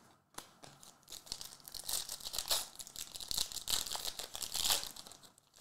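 Foil wrapper of a Contenders trading-card pack being torn open and crinkled by hand: a steady run of crinkling from about half a second in until near the end.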